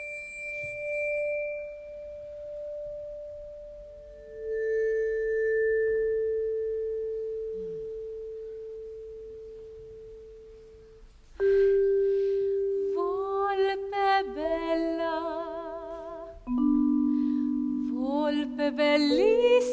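Vibraphone notes struck one at a time, the first at the start and the second about four seconds in, each left to ring and fade slowly. From about eleven seconds a woman sings held notes with wide vibrato over lower sustained tones.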